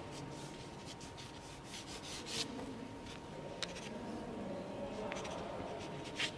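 Pencil sketching on watercolour paper: short, light scratchy strokes, a dozen or so scattered irregularly, as a portrait's outline is drawn.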